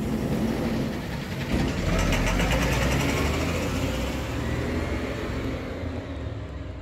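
A bus engine pulling away. It swells about a second and a half in and then fades gradually as the bus moves off.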